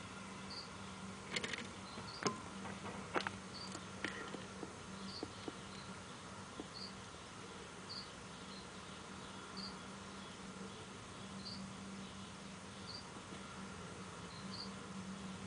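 Short high-pitched chirps repeating about every second and a half over a low steady hum, with a few sharp clicks in the first four seconds.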